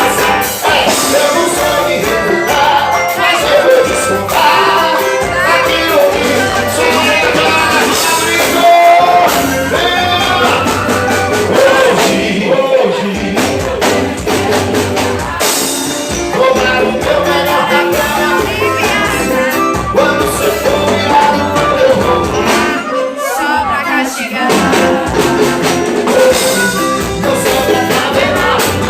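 A live band playing a song with a singer, loud and continuous, thinning out briefly about two-thirds of the way through.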